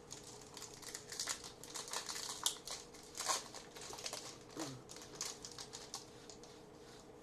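Irregular rustling and crinkling of trading cards and their foil pack wrappers being handled, with light clicks, over a faint steady hum.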